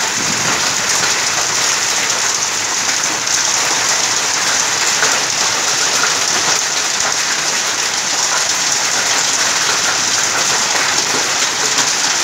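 Heavy rain in a hailstorm pouring steadily onto grass and standing puddles, a loud unbroken hiss.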